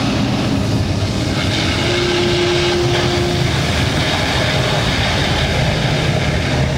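Loud, steady rumbling from a live stunt show's sound effects over the arena speakers as the temple set erupts in flames and smoke, with a brief steady tone about two seconds in.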